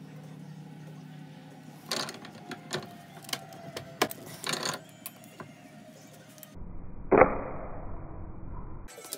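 Metal clicks and clunks from a hand-lever press as a brass stamp is positioned on leather and the lever is worked, several sharp knocks over a few seconds. After a short pause comes one loud sharp knock.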